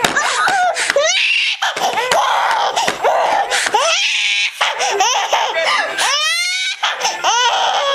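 Baby girl laughing hard, a run of quick belly laughs in repeated bursts.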